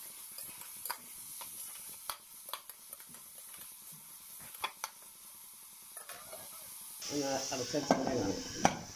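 A spatula stirring and scraping sliced onions frying in oil in a pressure cooker pot, with scattered sharp taps on the pot's side over a faint sizzle. About seven seconds in, a louder pitched call comes in.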